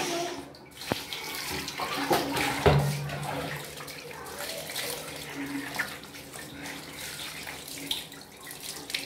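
Water running and splashing as it is poured over a Persian kitten being bathed, with a few light knocks.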